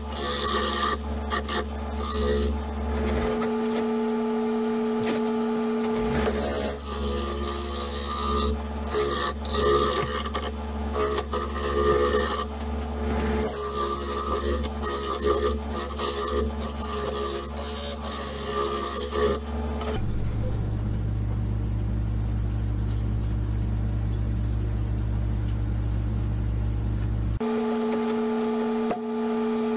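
Laguna 1836 wood lathe spinning a burl bowl at about 800 rpm while a bowl gouge cuts into it: a rough, uneven scraping over the lathe's steady motor hum. About two-thirds of the way through the cutting stops and only a steady hum remains.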